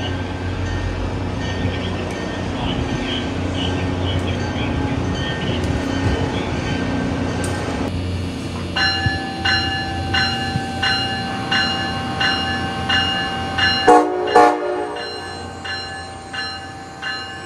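Steady low rumble, then the electronic bell of Amtrak ACS-64 electric locomotive 622 ringing in even strokes, cut across near the end by two short horn blasts about half a second apart. Two short blasts are the signal that the train is releasing brakes and about to proceed.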